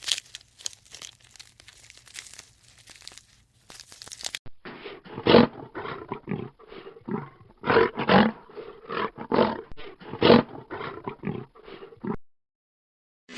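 Faint crackling and rustling for about four seconds, then an animal calling in a rapid series of short, loud calls for about eight seconds, stopping abruptly.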